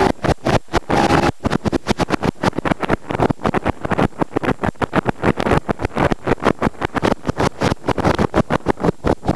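Wind buffeting the microphone in rapid, uneven gusts that cover every other sound.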